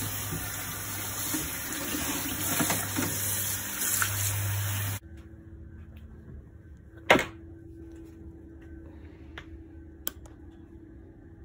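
Tap water splashing into a stainless steel sink and over a leather handbag as it is scrubbed with a brush; the water sound cuts off abruptly about five seconds in. After that a quiet steady hum, with one sharp thump about two seconds later as the bag is set down on a towel, and a faint click near the end.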